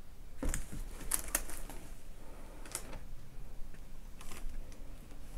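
Hands handling a canvas on a wooden frame: scattered light taps and knocks as fingers and the frame touch, a few of them sharper than the rest.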